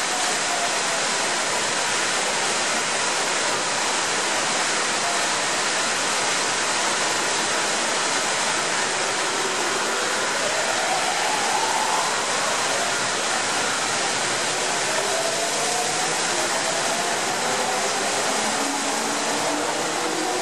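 Steady rushing of heavy rain water pouring from overflowing drain pipes. From about halfway through, the electric motors of a Yamanote Line train whine upward in pitch as it pulls away, with several rising tones near the end.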